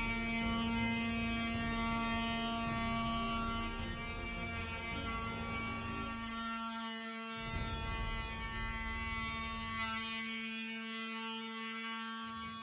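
A steady machine hum at one unchanging pitch, with a low rumble underneath that drops out twice, around six and ten seconds in.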